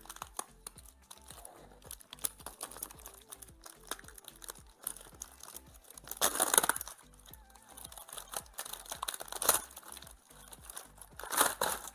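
Packaging of a flexible gas hose being opened by hand: crinkling and rustling with small clicks, louder about six seconds in and again near the end, over background music.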